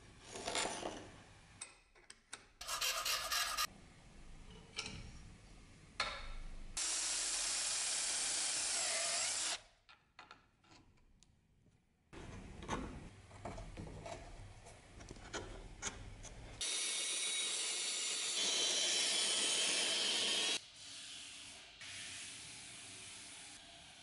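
Workshop hand-work sounds on a wooden cleaver handle and clamped blade: wood pieces handled and rubbed, and the clamp worked with ratcheting clicks. Two long stretches of steady hissing noise break in, the louder one about two-thirds of the way through.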